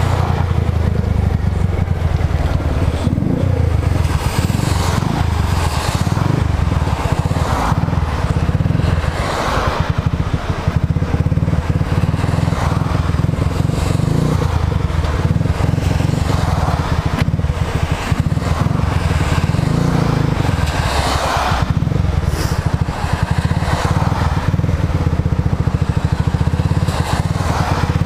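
Motorcycle engine running steadily at low road speed, heard close up on the bike, with a rushing noise over it that swells now and then.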